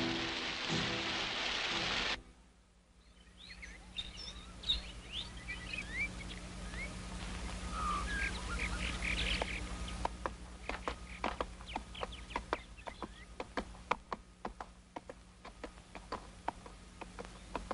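Orchestral film music that stops abruptly about two seconds in. Birds then chirp, and from about halfway on a horse's hooves knock over a steady low hum.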